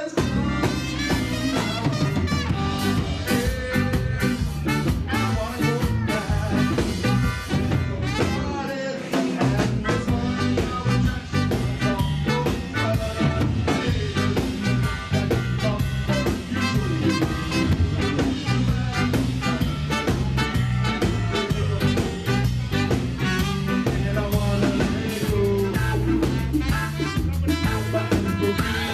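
Live ska band playing an instrumental passage, with melodica and trumpet over drum kit and electric guitar. The low end drops out briefly about nine seconds in.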